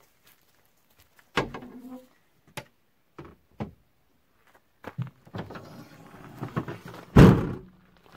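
Gear being loaded into the back of a Toyota Land Cruiser: scattered knocks and thuds as things are set down and shifted. About seven seconds in, the SUV's rear door, which carries the spare wheel, slams shut with a heavy thud, the loudest sound.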